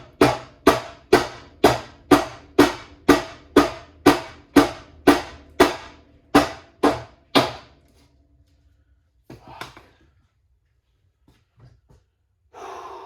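Hammer blows on metal, about two a second, each with a brief ring, stopping about seven and a half seconds in. The hammering is an attempt to knock apart a stuck, rust-seized part of a snowmobile engine.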